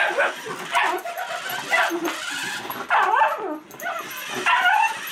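Miniature schnauzer yipping and barking at a remote control car in a series of short, high calls, about one a second.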